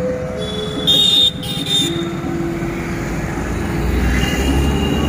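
Road traffic at night: cars and motorcycles running past, with a brief high-pitched beep about a second in and a low rumble building near the end as a vehicle comes close.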